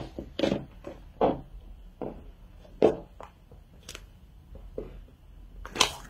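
Stiletto pumps pressing and crushing a soft white squishy toy on a laminate floor: an irregular series of short taps, squishes and scuffs, the sharpest near three seconds in and just before the end.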